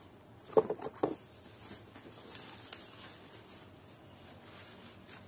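Several sharp plastic-and-metal clacks in quick succession about half a second in, then a few faint taps, as the electric nail gun is handled.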